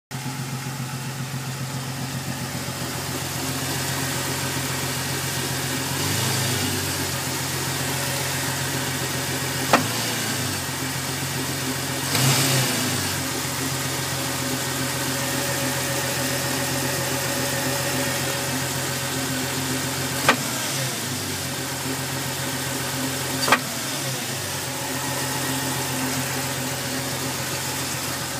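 Jeep Cherokee engine idling steadily with a strange knock. It is revved briefly a few times, and three sharp knocks stand out, about ten, twenty and twenty-three seconds in.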